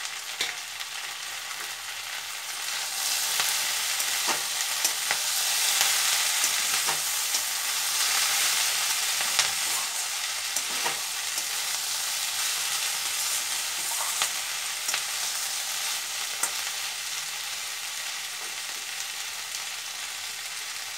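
Onion stalks, potato strips, tomato and green chillies sizzling in oil in a stainless-steel kadai, stirred with a spatula that scrapes and clicks against the pan. The sizzle grows louder from about three seconds in, then settles to a steadier, softer hiss after about twelve seconds.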